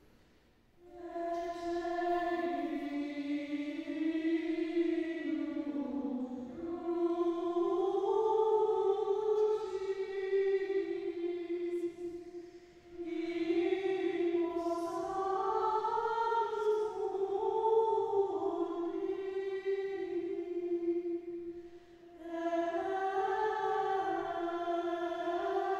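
Slow hymn sung as a single melody line in long held notes, with short pauses between phrases about six, thirteen and twenty-two seconds in.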